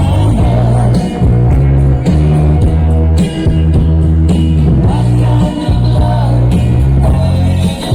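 Loud dance music with a heavy bass line and singing.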